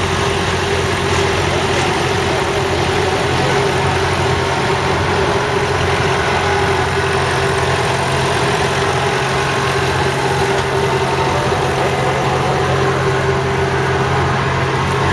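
1965 Claas Columbus combine harvester's 1.8-litre four-cylinder diesel engine idling steadily.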